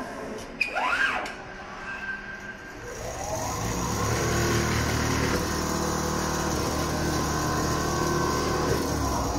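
Richpeace CNC template sewing machine stitching. Its motor whines up in pitch about three seconds in, runs steadily at high speed with a dense mechanical hum, and starts to wind down right at the end. A short whine that rises and falls comes about a second in, after a few light clicks.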